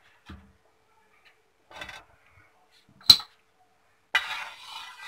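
A spatula knocking lightly against a metal kadai of hot mustard oil, a few separate clicks with the sharpest about three seconds in, then about a second of scraping as it is stirred through the oil near the end.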